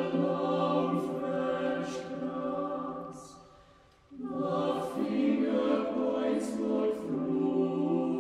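Mixed chamber choir singing a cappella, holding a sustained chord. About four seconds in, the chord dies away almost to silence, then the full choir comes back in together on a new chord.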